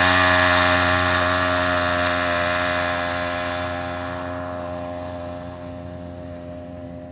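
The small weed-eater (string-trimmer) engine on a motorized push scooter running at high revs at a steady pitch, fading away steadily as the scooter rides off.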